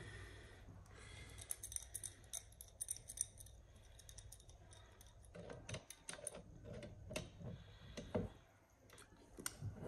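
Faint scattered clicks and light metal taps as a steel adjustable spanner is set and its jaws are fitted onto a brass compression nut on copper pipe. The clicks come a little closer together and louder about halfway through.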